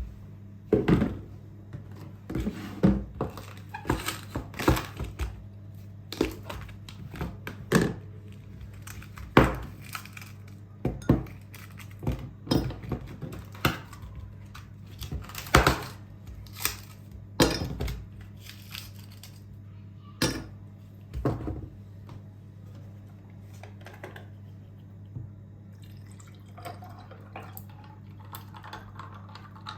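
Dishes and utensils clinking and knocking together in irregular clatters, which die away after about twenty seconds, over a steady low hum.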